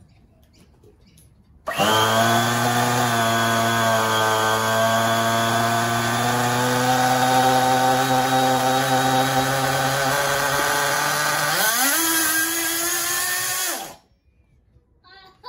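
Hobao Hyper 21 three-port nitro engine catching and running loud at a high, steady idle for about ten seconds. Near the end its pitch rises quickly and holds higher, then the engine cuts off suddenly. The idle is set too high, and the owner thinks the mixture might have been too lean.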